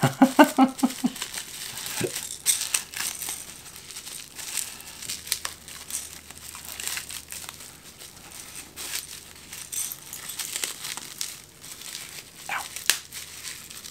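Clear plastic bubble wrap being unwrapped by hand, crinkling and rustling in irregular crackles.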